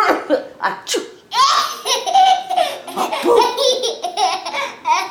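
Laughter in repeated short bursts.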